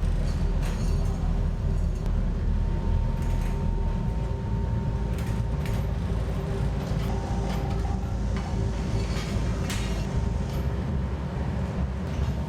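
Heavy foundry machinery running: a steady low rumble with a faint whine and a few scattered knocks, as molten bronze is handled for casting.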